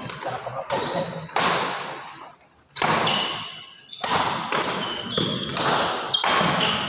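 Badminton rally: rackets smacking the shuttlecock about once a second, each hit echoing in the hall, with short high squeaks from players' shoes on the wooden court between hits.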